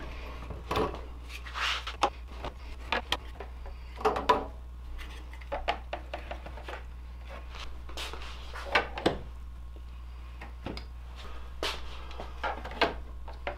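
Handguns being set one at a time into the slots of a foam-based pistol rack: scattered short clicks, knocks and rubbing as the pistols are handled and pushed in between the dividers, over a steady low hum.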